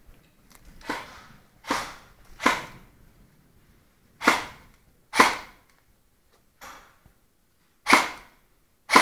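Airsoft guns firing single shots: about seven sharp cracks at uneven intervals, each dying away quickly, with a fainter one about two-thirds of the way through.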